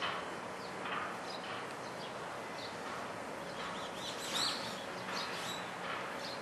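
Steady outdoor background noise with a few short, high bird chirps scattered through it, the loudest about four and a half seconds in.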